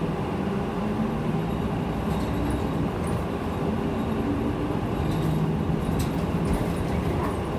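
Steady engine and road noise heard from inside a moving city bus, with a low engine drone that shifts a little in pitch.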